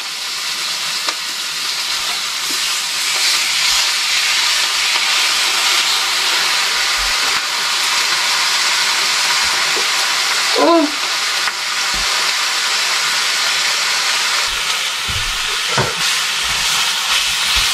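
Steak sizzling in a hot frying pan: a steady, loud hiss. A short pitched sound rises and falls about ten seconds in.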